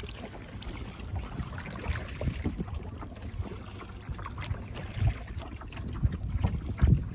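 Water lapping and splashing around a kayak, with a steady low rumble and a few louder splashes about two and a half, five and seven seconds in.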